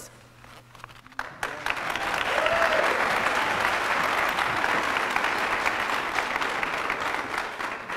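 An audience of a few dozen people applauding, starting about a second and a half in and tapering off near the end.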